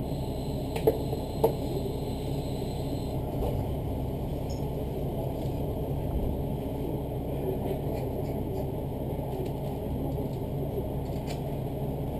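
Diesel railcar engine idling while the train stands at a station, heard from inside the carriage as a steady low rumble. Two short clicks come about a second in.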